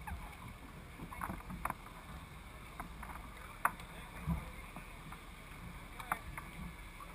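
River water lapping and slapping against a race boat's hull at the waterline, with a few short, sharp plinks and splashes of water over a low rumble.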